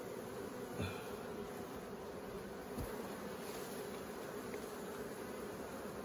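Honeybees buzzing in a steady hum around an opened hive, with two brief knocks, one about a second in and one near the middle.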